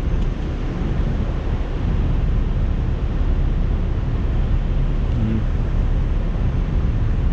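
Wind buffeting an action camera's microphone while riding a bicycle, a steady low rush with road traffic underneath.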